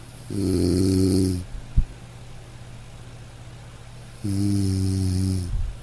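A person snoring: two low snores about four seconds apart, each lasting just over a second, with a sharp brief click just after the first and a low steady hum between them.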